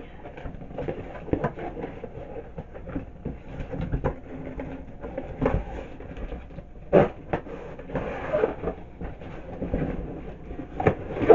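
Irregular knocks, clatter and rustling of someone shifting in an office chair and handling a box, with one sharp knock about seven seconds in.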